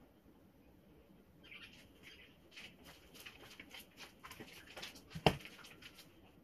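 Faint handling noises on a work table: a run of small clicks and crackles, with one sharp knock about five seconds in.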